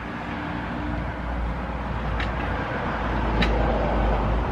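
Rumble and road noise of a passing motor vehicle, growing steadily louder, with two faint clicks.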